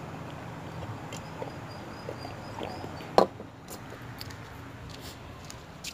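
Quiet room tone with a few small clicks and one sharp knock about three seconds in, with a faint high chirping in the background before the knock.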